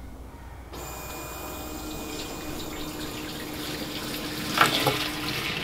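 Fuel pouring out of a rubber hose into a plastic gas can, a steady splashing stream that starts suddenly under a second in, with a brief louder splash about four and a half seconds in. The fuel is being dumped to try to get a vehicle that has been sitting started.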